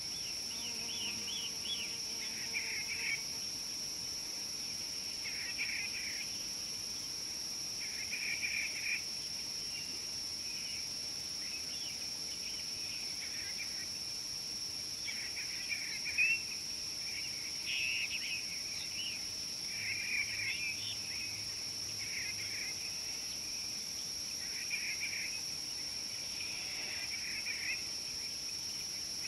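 A steady, high-pitched insect drone runs on, with short bird calls breaking in every two or three seconds; the loudest call comes about halfway through.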